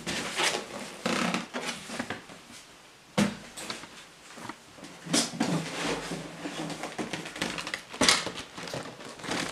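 Cardboard shoe boxes being handled and moved about: card rustling and scraping, with a sharp knock about three seconds in and further bumps around five and eight seconds.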